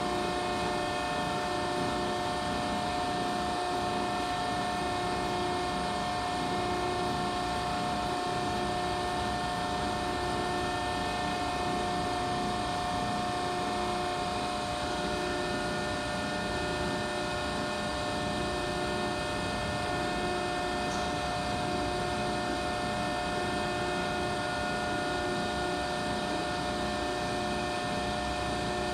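Hydraulic system of a Cincinnati 175FMX8 175-ton CNC hydraulic press brake running, a steady machine hum of several held tones with a faint pulse about every second and a half, as the ram moves slowly.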